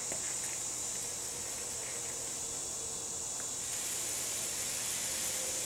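Paint roller working a wet DuraTex texture coating over a speaker cabinet: a steady high hiss with a few faint clicks, growing a little louder about two thirds of the way in.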